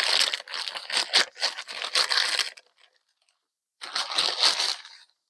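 A small package being torn open and its wrapping crinkled by hand. There are two and a half seconds of dense crackling and tearing, a pause, then another shorter spell of crinkling.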